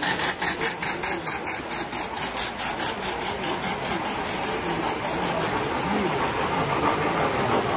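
Tinplate toy train running on its track: a rapid, even clicking of wheels over the rail joints, about five clicks a second, fading away after the first few seconds as the train passes.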